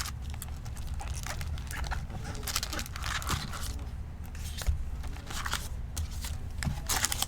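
Foil trading-card packs and a cardboard box rustling and crinkling in the hands as packs are pulled out, in a string of short, uneven rustles.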